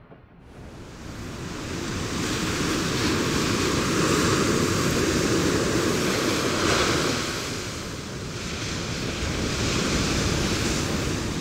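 Sea surf washing onto a beach: a steady rushing that fades in over the first two seconds, then swells and eases twice.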